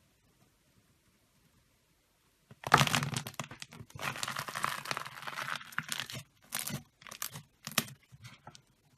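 Slime being pressed and squeezed, crackling and popping in a dense run of clicks. It starts suddenly about two and a half seconds in and breaks into several shorter bursts toward the end.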